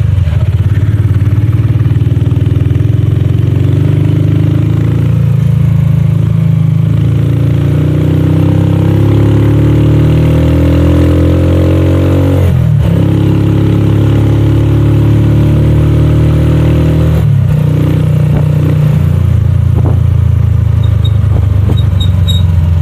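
Motorcycle tricycle's engine running under way, heard from inside the sidecar, its pitch climbing as it picks up speed and dropping back at gear changes a few times.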